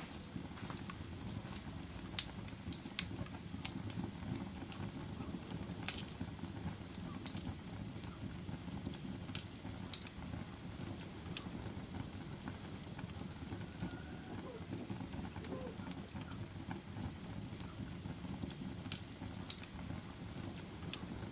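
A fire crackling: irregular sharp pops and snaps over a steady low rumble of burning, with the loudest pops about two and six seconds in.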